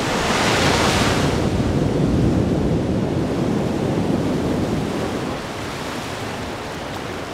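Sea waves washing in, with a wave breaking as a loud hiss in the first second or so, then a lower, steady wash that eases off about five seconds in; some wind on the microphone.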